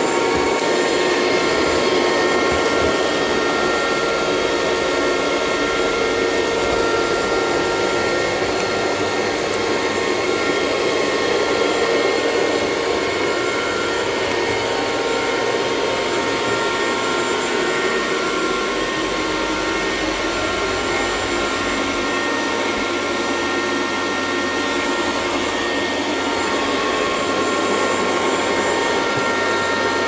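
Miele Scout RX2 robot vacuum cleaner running steadily as it sweeps a tiled floor, its side brushes turning: an even whirr with several steady whining tones held throughout.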